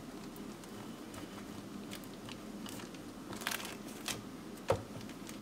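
Wooden rolling pin rolling a sesame-and-jaggery papad between greased plastic sheets on a round rolling board, a steady low rumble with scattered clicks and crinkling of the plastic sheets. A single sharp knock near the end.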